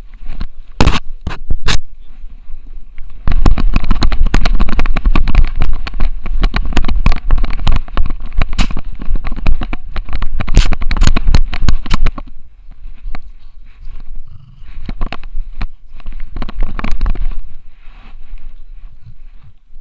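Dense knocking, scraping and rubbing on a Xiaomi Yi action camera strapped to a French bulldog's harness as two French bulldogs wrestle against it. The knocks come thickest and loudest from about three seconds in to about twelve, then thin out.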